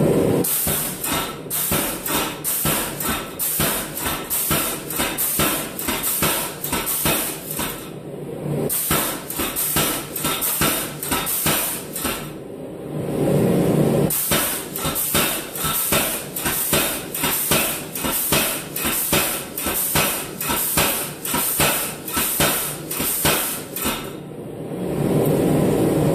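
Big Blu 110 air-driven power hammer striking a forge-heated piece of 1¼-inch round steel stock in a rapid, evenly paced run of blows, stopping briefly three times. The blows are upsetting the bar end-on into a thick disc for a bell clapper.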